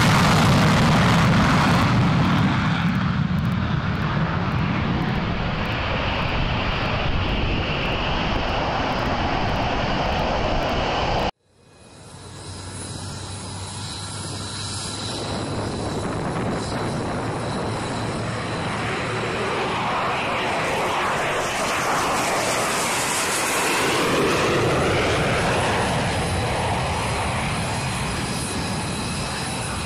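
Twin F119 turbofan engines of an F-22 Raptor at takeoff power: a loud, even jet roar. About eleven seconds in the sound cuts off abruptly, then jet noise swells back as another takeoff run builds and climbs out, with high whining tones shifting in pitch.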